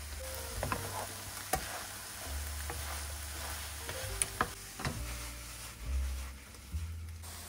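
Food sizzling in a frying pan while a utensil stirs it, with several sharp clicks of the utensil against the pan over a steady hiss. Soft background music with low bass notes runs underneath.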